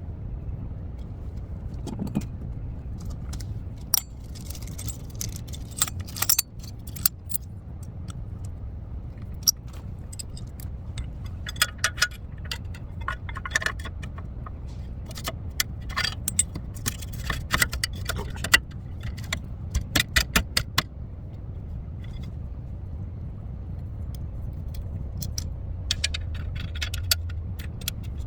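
Metal hand tools and suspension parts clinking and jangling in irregular bursts of sharp clicks while a new ball joint is fitted, over a steady low rumble.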